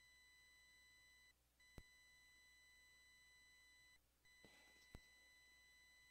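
Near silence with a faint, steady high-pitched tone that drops out briefly twice, about every two and a half seconds. There are also two faint clicks and a brief faint rustle.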